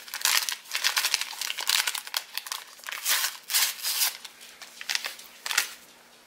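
Plastic pudding-mix packet crinkling and rustling in quick bursts as it is handled and emptied, dying away near the end.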